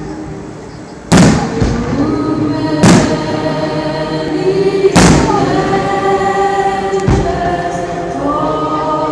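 Aerial fireworks shells bursting with four sharp bangs about two seconds apart, over music with a choir singing long held notes.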